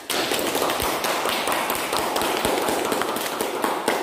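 A group of people clapping their hands, a dense patter of claps that starts suddenly and keeps on steadily.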